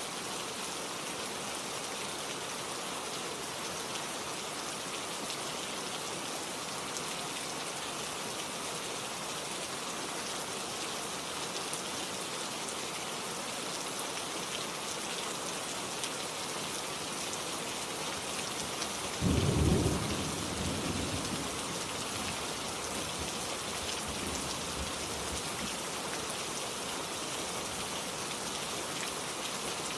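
Steady, heavy rain falling on surfaces, an even hiss throughout. About two-thirds of the way in, one sudden loud, low clap of thunder rumbles off over a couple of seconds.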